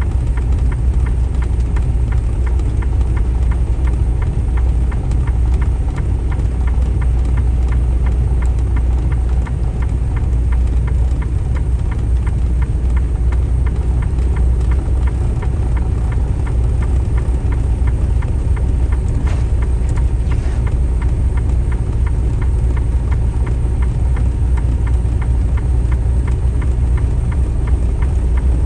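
Semi truck's diesel engine and road noise heard from inside the cab: a steady low drone while the truck climbs the pass.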